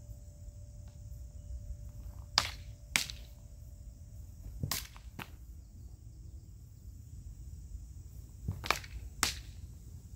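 Practice sabres clacking together in sparring: three pairs of sharp strikes, the two in each pair about half a second apart.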